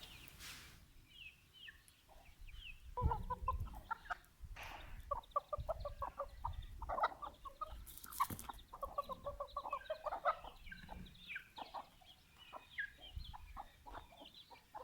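Chickens clucking in quick runs of short notes from about three seconds in, with high, short peeps scattered throughout and a few brief rustles.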